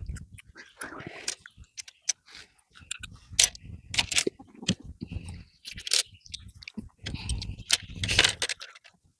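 Small plastic building-brick pieces clicking, rattling and scraping as they are picked out and pressed together, in irregular clicks throughout.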